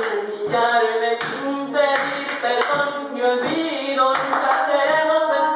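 A group of voices singing and vocalising together in sustained, sliding tones, over hand claps that fall at a fairly steady beat, about one every half second to second, as part of a group voice exercise.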